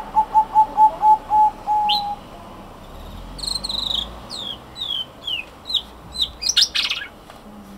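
Zebra dove (merbuk) cooing: a quick run of about seven short, staccato coos on one pitch in the first two seconds. Another bird follows with a series of high, falling chirps that end in a brief rasping burst.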